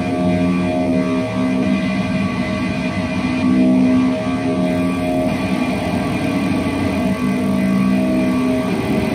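Electric guitar heavily processed through a chain of effects pedals, making experimental electronic music: layered held notes that change every second or two over a steady rough drone.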